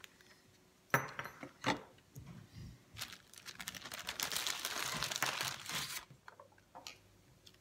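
Clear plastic bag crinkling as it is handled and opened, loudest and densest from about three to six seconds in. Two sharp clicks or knocks come before it, about a second in.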